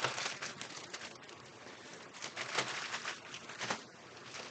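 Plastic zip-lock bags crinkling and rustling as they are opened and handled, with a couple of louder crackles about two and a half and three and a half seconds in.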